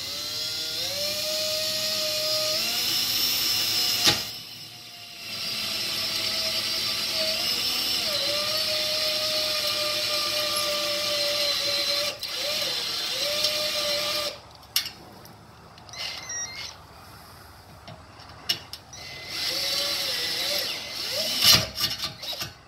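Cordless drill on low speed boring a cobalt bit into a car's steel bumper reinforcement bar under firm pressure. The motor whine winds up at the start and dips in pitch now and then as the bit bites; it stops about four seconds in, runs again until around fourteen seconds, and comes back briefly near the end, with a few clicks in the pauses.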